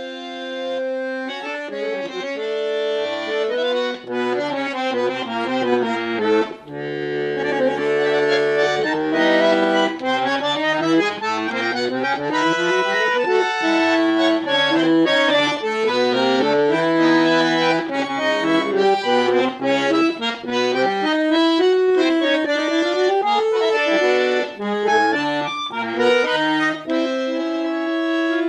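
Solo bandoneón playing a tango, a melody carried over sustained chords, with short breaks between phrases.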